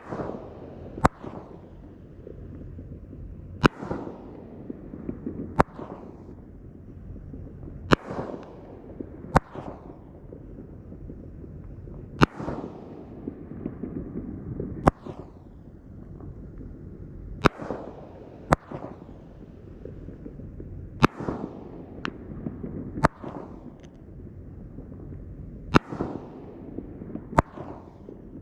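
A 2-inch, 9-shot consumer fireworks cake firing its shells. The sharp reports come mostly in pairs about every four to five seconds, each followed by a short fading hiss.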